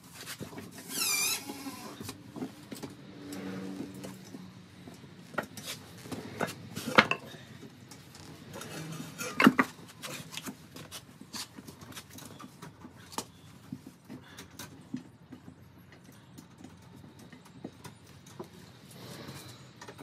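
Hand tools clinking and knocking against metal while a tire is being changed: scattered small clinks, a short falling squeak about a second in, and two loud sharp knocks about 7 and 9½ seconds in.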